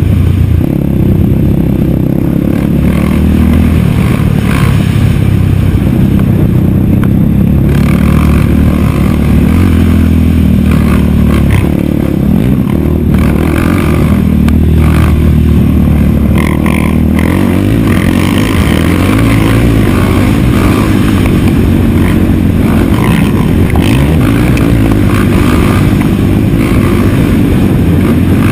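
Race quad (ATV) engine running hard at speed on a dirt track, revving up and down as the throttle opens and closes, with rattles from the chassis over bumps.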